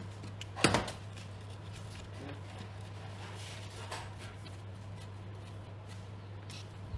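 A single sharp knock, like a hard object being set down or struck, a little over half a second in, then a few faint clicks and rustles, over a steady low hum.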